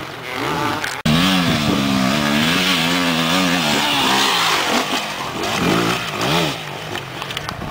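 Enduro dirt-bike engine revving hard as it passes close by, the pitch rising and falling with the throttle. Loudest for about three seconds after an abrupt cut about a second in, then revving up and down more faintly as the bike rides away up the track.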